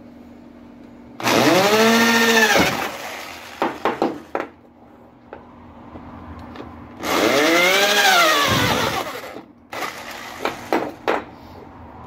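Electric drill with a twist bit boring holes in a fan motor's aluminium end cover. It makes two short runs, a few seconds apart; in each the pitch climbs as the motor speeds up, then drops as it slows. A few light knocks fall between the runs.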